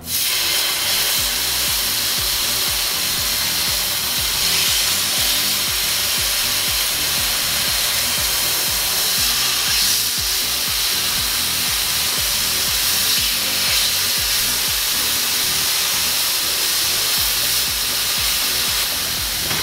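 Marinated chicken breasts sizzling as they are laid one by one into a roasting pan preheated in a hot oven: a steady sizzle of searing meat.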